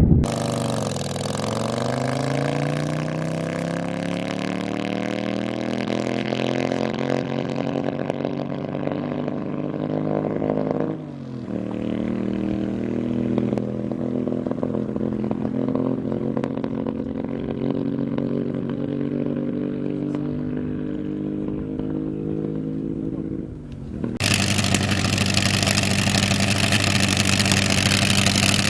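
Engines of land-speed race vehicles running in three short takes. First one engine's note dips, then climbs steadily for about ten seconds as it pulls through the revs. After a sudden change about 11 seconds in comes a steady engine note, and about 24 seconds in a louder, harsher engine note with a hiss over it.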